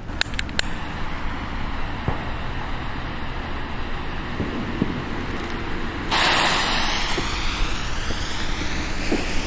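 Funke Scala S25B firework battery igniting: about six seconds in, a sudden loud spraying hiss of sparks sets in and runs on, under a steady outdoor background noise. A few sharp clicks come near the start.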